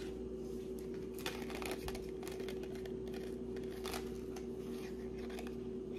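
Faint rustling and small scattered clicks of jewelry and its packaging being handled, over a steady low hum.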